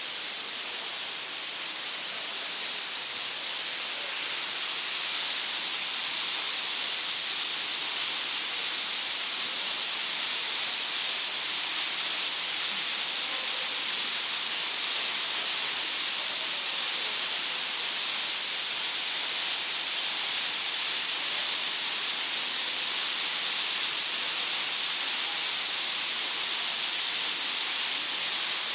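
Waterfall pouring: a steady rushing hiss that grows a little louder over the first few seconds.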